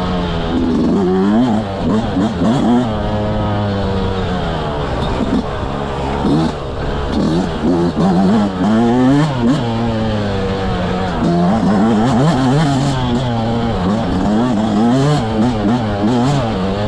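Yamaha YZ125X single-cylinder two-stroke dirt bike engine being revved up and down without a break, its pitch rising and falling every second or so as the throttle is worked.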